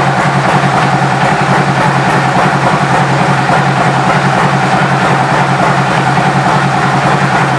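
2012 Harley-Davidson Road Glide Custom's Twin Cam 103 V-twin idling steadily through an aftermarket exhaust.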